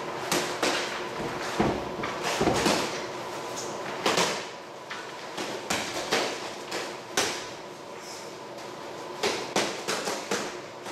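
Boxing gloves landing in irregular sharp thuds and slaps during sparring, some in quick pairs and flurries, with a few louder blows scattered through.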